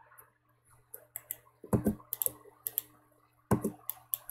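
Computer keyboard keys and mouse buttons clicking, scattered presses in a few small clusters, over a faint steady hum.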